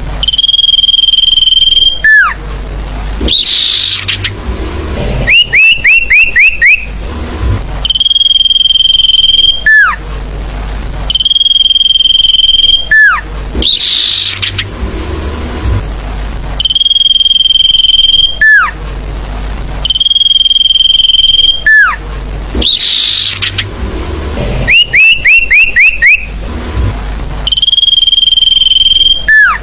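Sirfu bird lure calls, looped: a long steady high whistle ending in a quick falling note, repeated, with runs of five or six rapid falling chirps in between, over a low steady hum.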